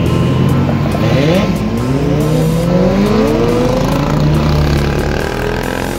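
Vehicle engines revving hard while accelerating away, climbing in pitch in several rising sweeps through the gears, with some of the sweeps overlapping. After that the engine tones hold steadier.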